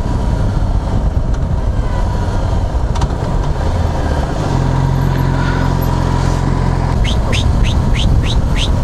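Yamaha FZ6R's inline-four engine running under way, with wind and road noise; about halfway through the engine holds a steady note. Near the end a high chirp starts repeating quickly, about three times a second.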